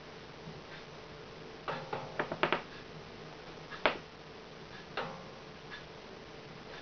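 A low steady hum with a handful of small, sharp clicks and taps: a quick cluster about two seconds in, then single clicks near four and five seconds.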